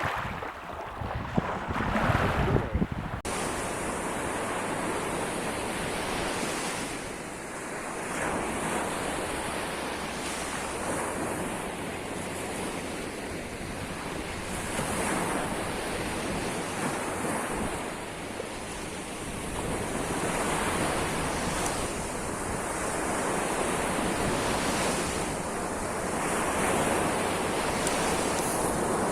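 Sea surf: waves breaking and washing in, swelling and easing every few seconds, with wind blowing on the microphone. The sound changes abruptly about three seconds in.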